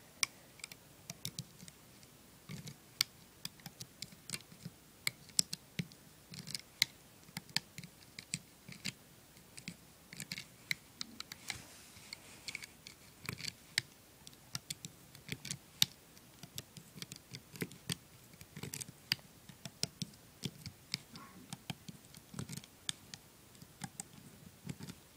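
Irregular small clicks and snaps of a plastic loom hook against the pins of a rubber-band loom as rubber bands are grabbed and pulled forward, link by link, in a single chain.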